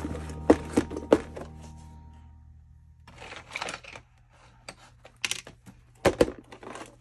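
Clear plastic parts organizer box being handled: its lid latches clicking, the lid opened and shut, and small RC parts rattling in the compartments, in several sharp clicks and a short clatter. Background music fades out after about two seconds.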